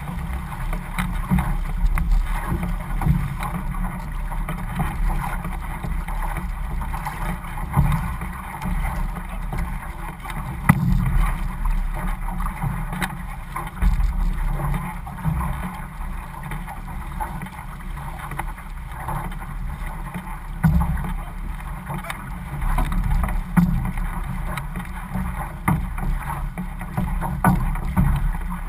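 Water rushing and splashing along an outrigger canoe's hull and float as the crew paddles, with paddle blades catching the water, over a low rumble of wind on the microphone.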